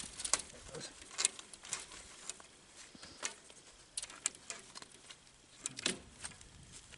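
Irregular clicks and light scrapes from hands working an adjuster pulley on the wire of a maple sap mainline.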